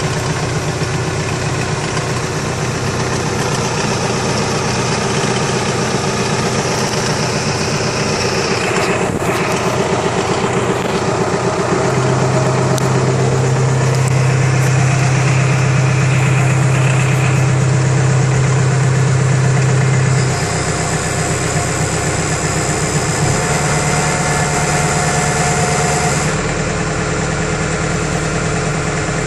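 Engine running steadily, driving the hydraulics of a Cranab FC53DT timber crane on a forestry trailer. The note shifts several times and runs louder and deeper for several seconds in the middle as the crane is worked.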